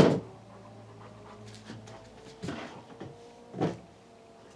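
Knocks and scuffs of a dog retrieving a bottle for a drawer: a sharp knock at the start, then two softer knocks about two and a half and three and a half seconds in, over a faint steady hum.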